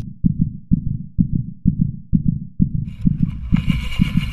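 Low, heavy thumps in a heartbeat-like double-beat rhythm, about two a second. A hissing noise joins in about three seconds in.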